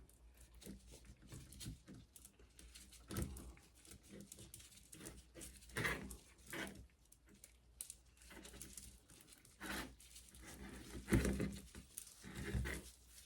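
A bicycle chain being handled and coiled by hand, its links clinking and rattling softly in scattered short bursts.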